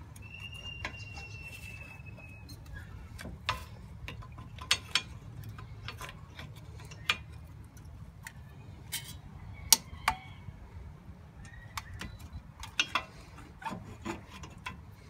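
Irregular metal clicks and knocks from a flat-blade screwdriver prying between a brake caliper, its pads and the disc rotor, the loudest knock about ten seconds in.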